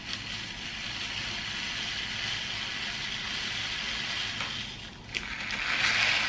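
Dry rice grains trickling through the neck of a plastic water bottle, a steady hissing patter. About five seconds in it dips, then comes back louder along with the rustle of the plastic rice packet.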